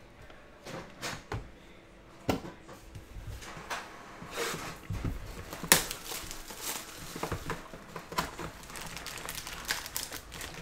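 Trading card box and foil card packs being handled, the wrappers crinkling, with scattered sharp clicks and taps. A few clicks in the first couple of seconds come before the steady crinkling sets in.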